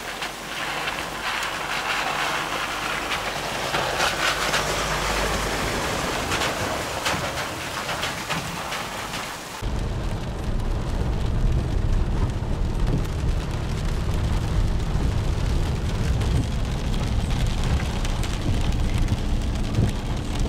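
Steady hiss of rain with scattered drop ticks while a vehicle drives on a wet gravel road. About halfway through it changes abruptly to the low rumble of the vehicle driving, heard from inside the cab, with rain or wet snow hitting the windscreen.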